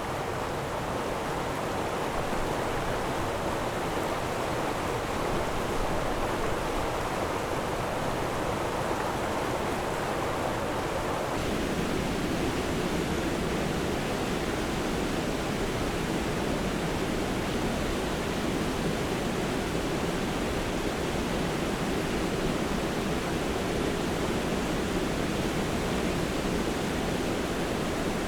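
Water rushing over a dam in a steady roar. About eleven seconds in the sound changes abruptly to a deeper, lower rush.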